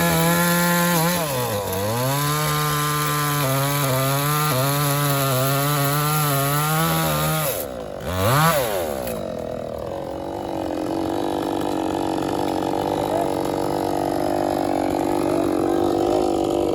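Chainsaw engine running at high revs with a steady note that sags briefly about a second and a half in. About seven and a half seconds in it drops off, gets one quick throttle blip, and then idles steadily.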